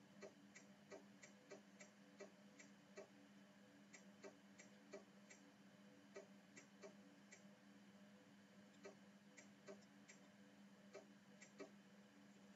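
Near silence: a low steady hum with faint, irregular small clicks, a few a second with short pauses between runs.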